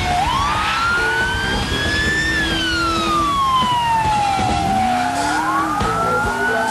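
Police-style wail siren rising and falling slowly, one full up-and-down cycle about every five seconds, over the engine of a 1976 Ford Gran Torino fitted with a Roush V8, which revs as the car is driven hard.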